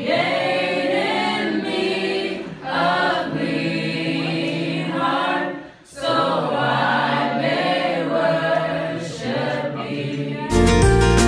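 A small group of women singing together a cappella, in phrases with short breaks about two and a half and six seconds in. Near the end a louder background music track cuts in.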